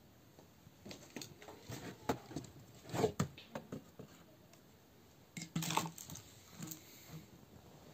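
Black plastic spray gun of an electric paint sprayer and its small metal fittings handled in a cardboard box: a run of small clicks and light knocks, then a louder clatter and scrape about two-thirds of the way through.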